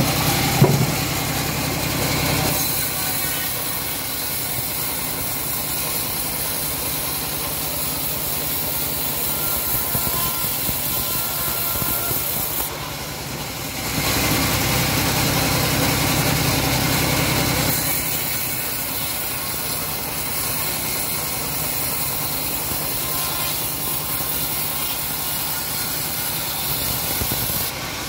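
Homemade band sawmill running steadily as its blade cuts lengthwise through a teak log. The machine's note changes as a cut starts about two seconds in and again about eighteen seconds in, with a stretch between cuts from about fourteen to eighteen seconds.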